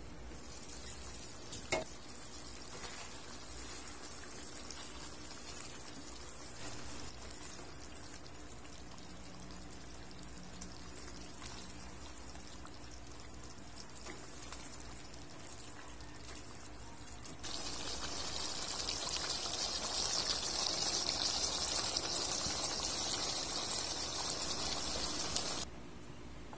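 A chicken stew simmering in a wok: a single clink about two seconds in as the glass lid is lifted, then for about eight seconds a louder, steady sizzling and bubbling of the thick sauce in the pan, starting and stopping abruptly.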